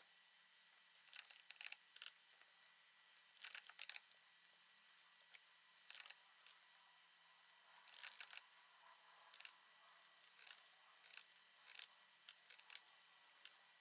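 Faint computer mouse clicks and keyboard keystrokes, a dozen or so short clicks, singly and in quick little clusters, scattered over a near-silent room.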